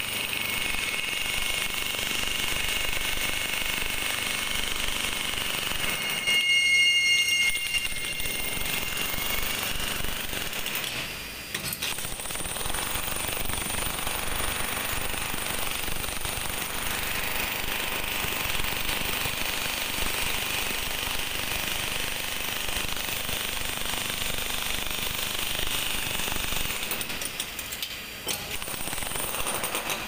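Corded electric demolition hammer chiseling concrete, a steady rapid hammering. A loud ringing tone comes in over it about seven seconds in. The hammering drops off briefly near eleven seconds and again near the end.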